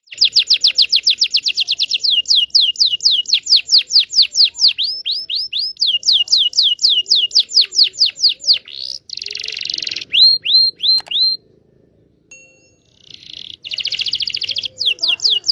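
Canary singing long rolls: runs of rapidly repeated downward-sliding whistled notes, fast at first and then slower, broken by buzzy trills and a short pause about twelve seconds in.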